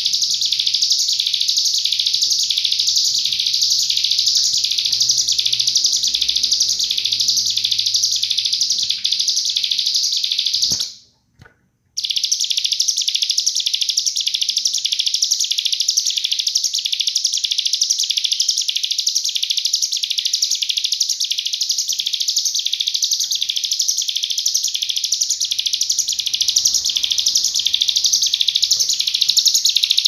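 Caged cigun (ciblek gunung, a hill prinia) singing its rapid-fire 'nembak' song: a steady run of shrill, evenly repeated high notes, about two a second, with a one-second break a third of the way through.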